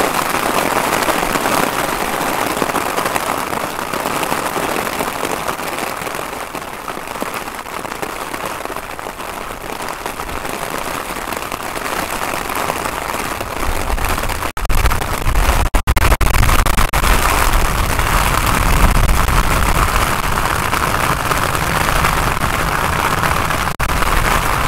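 Heavy rain hissing steadily, joined about halfway through by the low rumble of an Airbus jet airliner's engines, which grows loud as it lands and rolls along a waterlogged runway.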